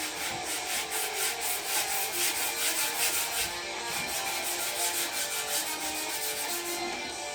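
Sandpaper rubbed by hand over a bicycle frame in quick back-and-forth strokes, about five a second, with a short break about halfway through and a stop near the end.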